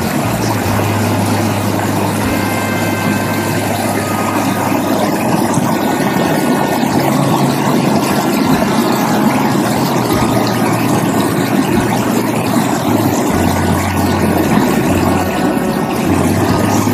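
A small creek's water running over a riffle, a steady rushing noise, with a low hum underneath that drops out and comes back a few times.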